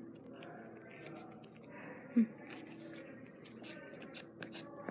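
Quiet handling of a plush toy's fabric and cotton stuffing, with a few short sharp clicks near the end. About two seconds in there is a brief, loud sound that falls in pitch.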